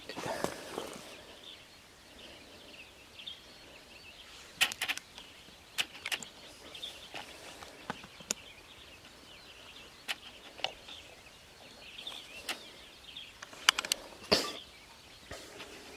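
Scattered sharp clicks and knocks of a rifle and gear being handled, a dozen or so spread irregularly, the loudest a little before the end. Faint birdsong carries on behind them.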